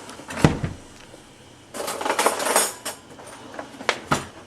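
Saucepan of simmering potatoes being checked: a sharp metal clank about half a second in, a second of clattering and scraping around two seconds in, and two light knocks near the end.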